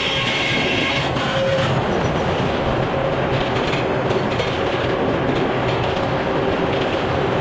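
Sawmill running, sawing a black cherry log: steady, loud mechanical noise of the mill and blade with a continuous rattle.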